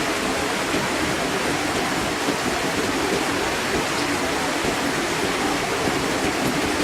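Water spilling steadily over a backyard fish-pond waterfall.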